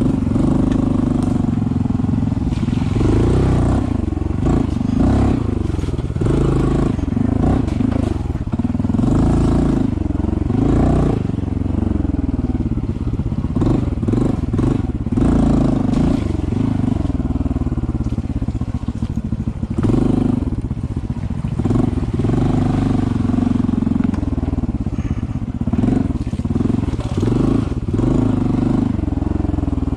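Honda CT125's single-cylinder four-stroke engine running at low revs while the bike is ridden along a trail. The engine note rises and falls again and again as the throttle is opened and eased.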